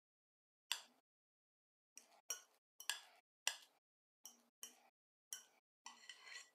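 Metal spoon clinking against a glass salad bowl while cooked rice is pressed down into an even layer: about ten light, separate clinks, irregularly spaced and faint.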